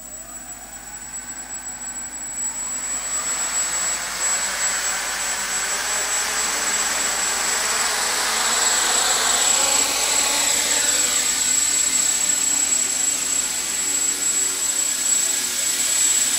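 Small quadcopter's electric motors and propellers whirring with a steady high whine. It grows louder over the first few seconds as the motors spin up, then lifts off and hovers, its pitch gliding up and down.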